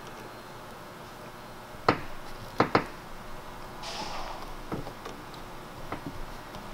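Hands pressing and working sealant tape around a roof fan-mounting flange and its screw heads: a few sharp taps and clicks, the loudest a single one about two seconds in and a quick pair just after, with a short rustle of tape about four seconds in.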